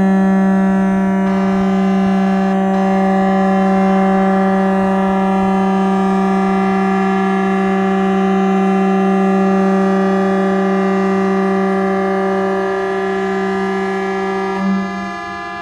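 Several boat horns sounding together in one long held blast, their different pitches blending into a steady, discordant chord. The deepest horn fades out near the end.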